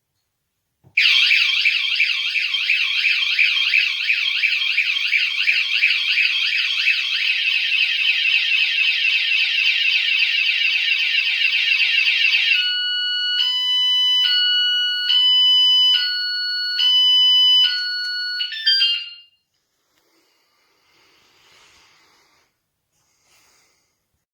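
Electronic anti-theft bike alarm siren going off loud: a fast warbling wail, then after about eleven seconds a stepped electronic tone pattern that switches pitch about once a second, before it cuts off suddenly.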